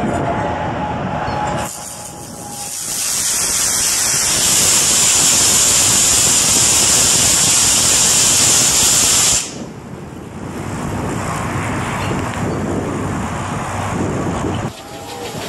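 High-voltage centre-break disconnector switch opening under load and drawing an electric arc between its arms: a loud, steady hiss that builds about three seconds in and cuts off suddenly some six seconds later as the arc breaks, leaving a quieter rushing noise.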